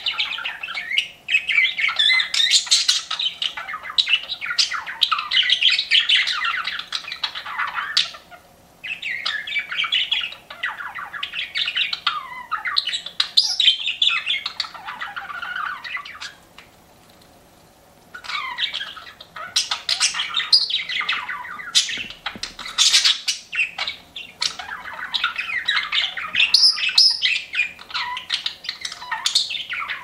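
Several budgerigars chirping and chattering in quick, overlapping bouts, with a brief pause about eight seconds in and a longer lull from about sixteen to eighteen seconds.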